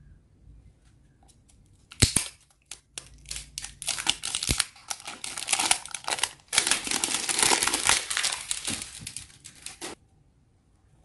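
Clear plastic wrapping being torn and crinkled off the cap of a plastic shower scrub bottle. It starts with a sharp crackle about two seconds in, runs on as uneven crackling that grows denser, and stops suddenly near the end.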